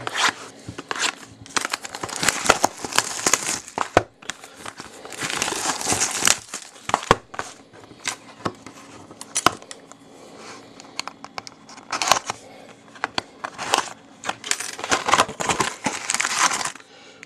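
The packaging of an Upper Deck Trilogy hockey card box being torn open and handled, heard as bouts of crinkling and tearing with sharp clicks in between. Near the end the foil card packs are pulled out and rustle in the hand.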